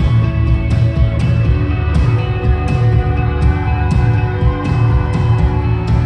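Live rock band playing loud through a concert PA: sustained guitar chords over heavy bass, with a steady drumbeat.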